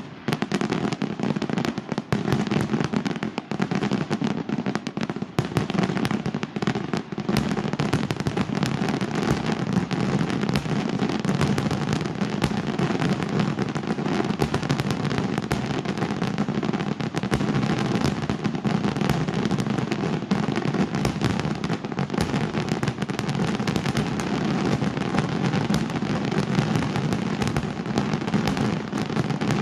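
Aerial fireworks display: a dense, unbroken stream of rapid bangs and crackles that never lets up.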